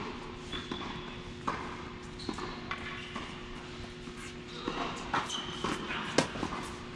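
Tennis being played: a string of sharp knocks from the ball being struck by rackets and bouncing on the court, about a dozen in all, the loudest about six seconds in, with a few short high squeaks between them.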